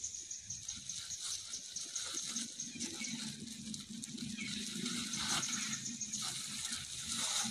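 Dry fallen leaves rustling and crackling as macaques shift and move over them, with a steady high hum in the background.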